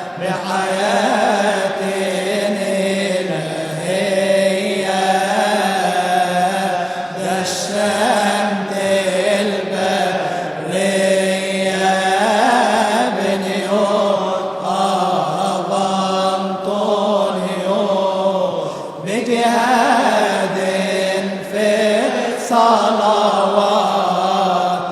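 A man's solo voice chanting a Coptic madih (praise hymn) to Saint Anthony, in long, drawn-out ornamented phrases with few distinct words.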